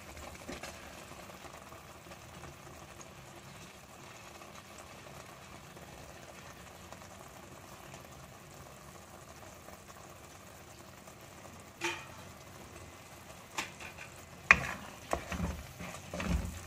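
Masala sizzling faintly and steadily in a pan. About twelve seconds in, a spatula starts knocking and scraping against the pan as crumbled paneer is stirred into the masala, with one sharp knock a couple of seconds later and quicker clatter near the end.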